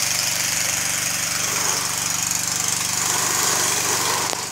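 Water tanker truck's engine running steadily to drive the pump feeding a hose, with the hiss of the water jet spraying.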